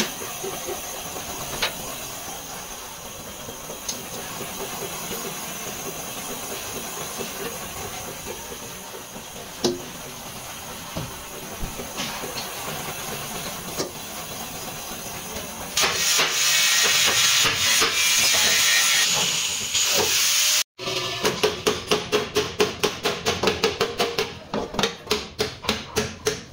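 Gas torch flame hissing steadily as it heats the bent sheet steel of a car's front inner apron, growing louder for a few seconds. After a break, a quick run of hammer blows on the heated steel, about three or four a second.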